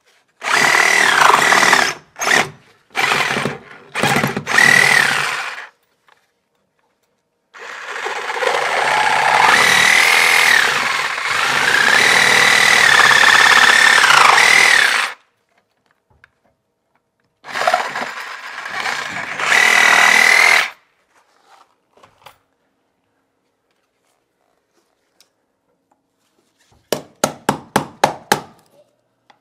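Cordless reciprocating saw cutting through the wooden floor in several bursts, its motor whine dipping and recovering as the blade loads up, the longest cut lasting about seven seconds. Near the end, a quick run of sharp taps, about five a second.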